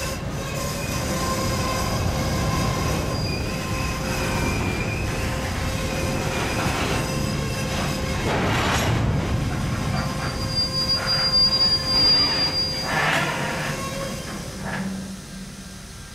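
Freight train's covered hopper cars rolling slowly past on curving track, steel wheels squealing against the rail in steady high tones over a low rolling rumble. There are louder clanks and rattles a few times around the middle, and the sound dies down near the end.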